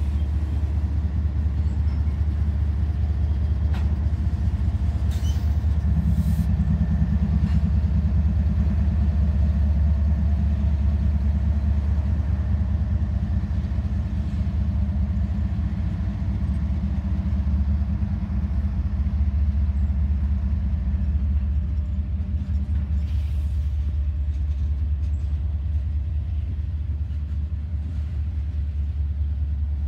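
Freight train rolling past close by: a steady low rumble of cars on the rails. A mid-train Norfolk Southern diesel locomotive adds a droning engine note from about six seconds in, which fades out past the middle.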